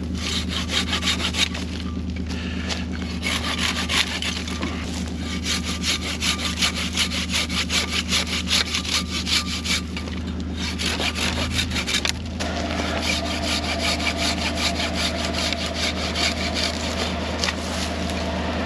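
Folding pull saw (Silky BigBoy 360) cutting through a branch in runs of quick, rasping strokes, with a short change in the strokes about twelve seconds in. The Kawasaki Mule Pro FXR's engine idles steadily underneath.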